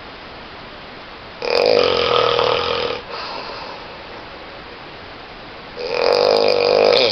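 A person snoring loudly: two long snores about four seconds apart, each lasting about a second and a half, over a steady background hiss.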